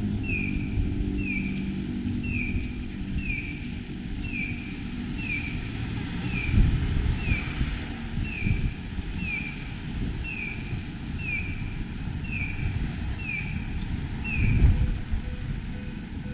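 Audible pedestrian crossing signal chirping: a high, falling electronic peep repeated about twice a second, which stops near the end. Low traffic rumble underneath, swelling twice.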